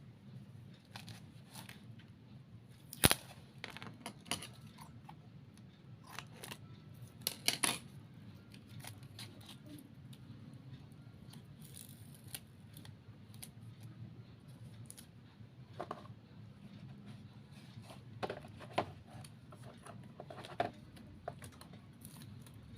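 Scattered snips and small clicks of hand crafting work, scissors cutting material. The sharpest click comes about three seconds in and a cluster of snips near eight seconds, over a low steady hum.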